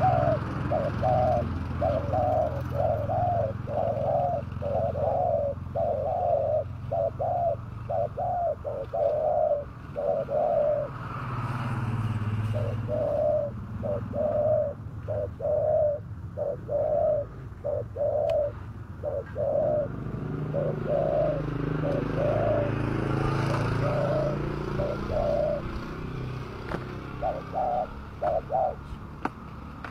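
Spotted doves cooing in a long run of short, evenly pitched coos, about two a second, with a couple of brief pauses. A passing vehicle rumbles low underneath twice.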